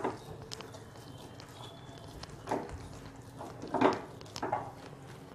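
Spatula scraping and pushing thick, cooked besan dough around a non-stick kadhai: a few irregular scrapes and squelches, the strongest about four seconds in. The batter is being stirred without stopping as it thickens into a lump-free dough ball.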